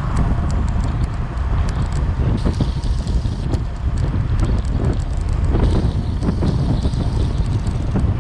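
Wind buffeting the microphone of a bicycle-mounted camera at about 21–25 mph, a dense steady rumble over the noise of the bike rolling on asphalt, with scattered small clicks and rattles.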